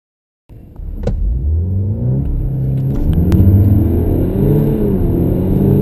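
Car engine pulling hard from a standstill under full acceleration, heard from inside the cabin; it starts suddenly about half a second in, and its pitch climbs and drops back at each gear change. A couple of sharp clicks sound near the start.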